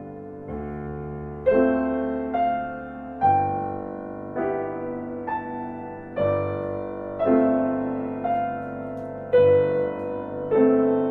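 Slow, gentle solo piano music, with single notes and chords struck about once a second, each fading away before the next.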